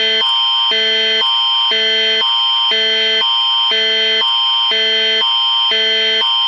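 Canadian Alerting Attention Signal of an Alberta Emergency Alert: a loud, harsh alarm tone switching between two chords about twice a second over a steady high whine. It marks the start of an emergency alert broadcast.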